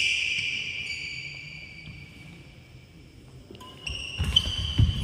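Badminton rally on a wooden indoor court: shoes squeaking high-pitched on the floor, footsteps thudding, and a couple of sharp racket hits on the shuttlecock near the end.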